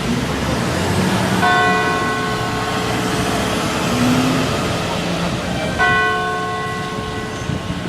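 Carillon bells of the Munttoren in Amsterdam striking twice, about four seconds apart, each stroke ringing on for several seconds, over a steady hum of city traffic.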